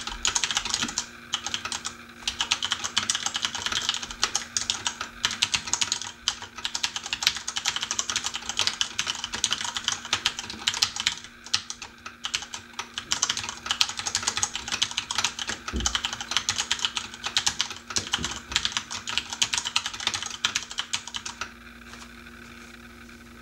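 Fast, continuous typing on a mechanical keyboard with Cherry MX switches, a dense run of key clicks that stops about two seconds before the end. A steady low hum from an air-conditioning unit runs underneath.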